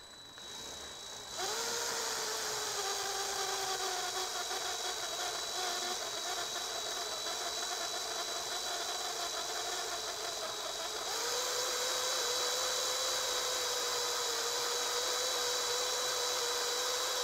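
Cordless drill spinning a 1-inch hole saw in reverse against 1/8-inch plastic, mushing the hole out rather than biting. The motor whine starts about a second in and sags slowly in pitch under the load, then steps up about eleven seconds in and holds steady to the end.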